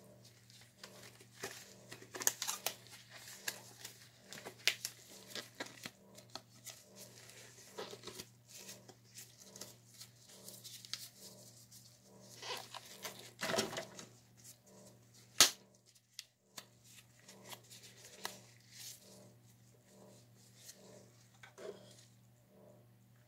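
Plastic cups and paint supplies being handled and moved about on a cluttered table: scattered clicks, knocks and plastic rustles and crinkles, with one sharp click about fifteen seconds in, over a steady low hum.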